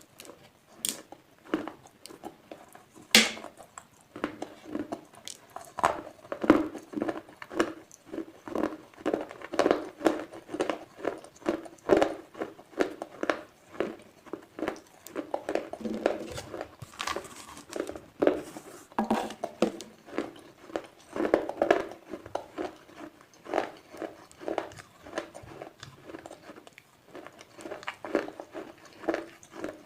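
A person biting and chewing slate pencils close to the microphone: crisp crunches repeating several times a second, with one especially sharp bite about three seconds in.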